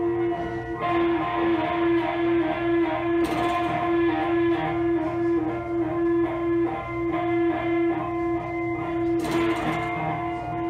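Live amplified experimental music: a loud held droning tone with overtones, broken into a stuttering pulse in the middle, with washes of noise swelling in about a second in, again around three seconds in, and near the end.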